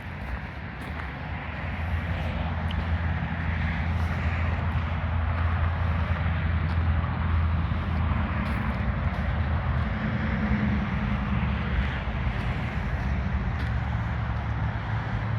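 Diesel engine of a John Deere 410J loader backhoe running steadily. It grows louder about two seconds in and eases back near the end.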